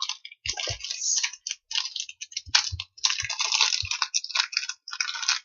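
Toy packaging crinkling and rustling in irregular bursts as it is worked open by hand, with a few soft low thumps.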